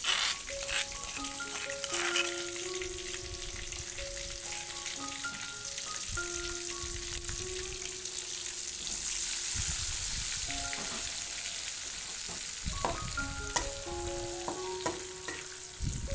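Coarsely pounded green-chili paste sizzling as it is sautéed in hot oil in an aluminium wok, with a steady hiss. A metal spatula scrapes and knocks against the pan in the first couple of seconds and again near the end.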